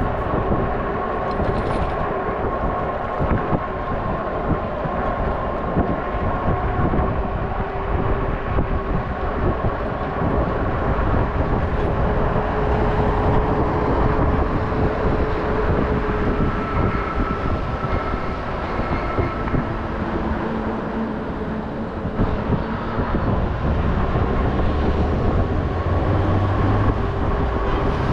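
Riding noise from an electric bike in city traffic: a steady rumble of road and wind on the microphone, with a faint steady whine held underneath.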